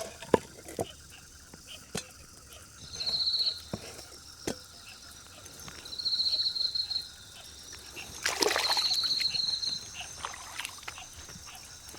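A calling insect gives three short, high pulsed trills, each under a second, over scattered light clicks and knocks. A brief splash-like rush comes about eight seconds in.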